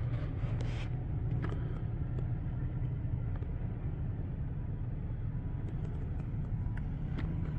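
Diesel dump truck rumbling steadily at low speed as it backs up to couple to a second trailer box, with a few faint clicks.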